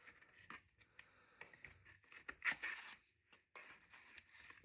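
Soft rustling and scraping of paper and cardboard as items are lifted out of a small kraft cardboard box, with the loudest rustle about halfway through.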